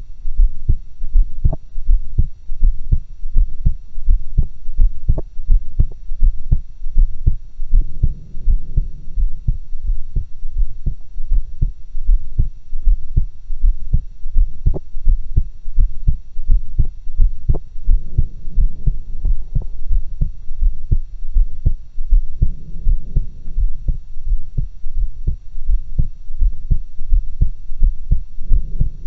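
A woman's heartbeat picked up through stethoscopes on her chest: steady, evenly spaced low double thumps. A soft rushing noise swells in several times.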